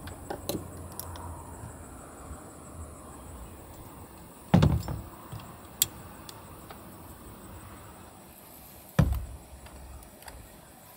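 Two dull knocks about four and a half seconds apart as a metal camp lantern and then a small plastic box are set down on a hard plastic ledge inside a car. Light clicks of handling come between them, over a faint low rumble that fades early on.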